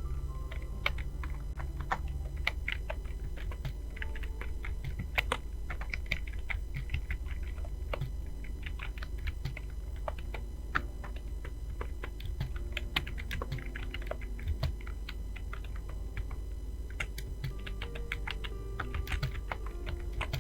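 Computer keyboard being typed on: quick uneven runs of key clicks, thinning out for a couple of seconds near the end before picking up again, over a steady low hum.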